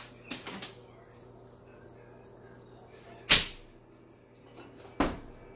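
Two sharp knocks about a second and a half apart, the first louder, with a short ring after each.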